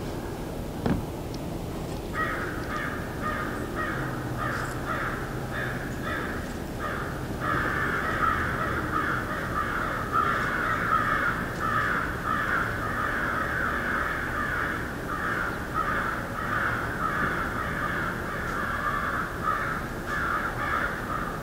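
Crows cawing: many harsh caws overlapping, starting about two seconds in and growing into a dense, louder chorus from about seven seconds on. A single sharp knock about a second in.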